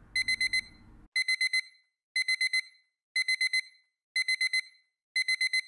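Electronic alarm clock beeping: bursts of four quick, high-pitched beeps, repeating once a second.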